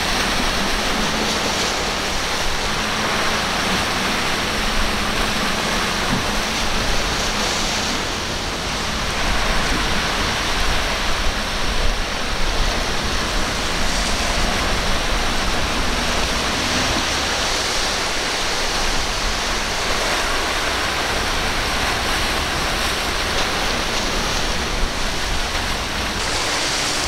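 Steady rushing of breaking waves and churning white water in rough inlet seas, with no clear engine note.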